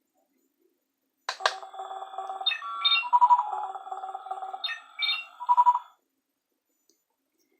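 Electronic sound effect from a toy Batmobile: a click, then a run of beeps and steady electronic tones that lasts about four and a half seconds and then stops.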